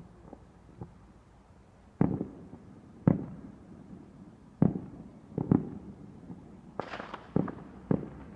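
Fireworks going off: a few faint pops, then a run of loud, irregularly spaced bangs from about two seconds in, each trailing off in a short rumble, with a quick crackling cluster near the end.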